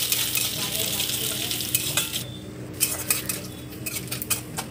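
Chopped coconut sizzling in hot oil in a steel kadai while a metal spatula stirs it. About two seconds in the sizzle dies down, and several clinks and scrapes of the spatula against the pan follow.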